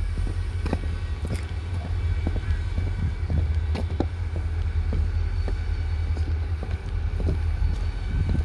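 A freight train's diesel locomotives: a steady low rumble, with scattered sharp clanks and knocks over it.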